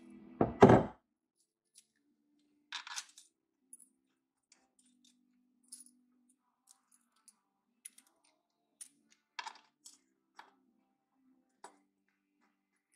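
A heavy thump about half a second in, then scattered light metallic clicks and clinks, about one a second, as a handful of metal bolts with washers is handled and the bolts are set by hand into the intake manifold's bolt holes.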